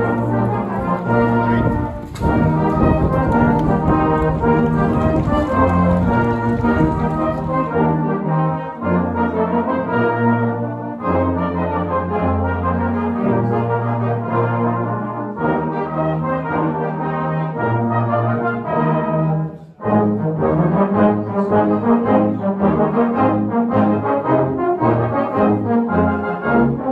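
Brass band music: a full ensemble of brass instruments playing a lively tune. The music cuts off abruptly about two-thirds of the way through and picks up again with a different passage.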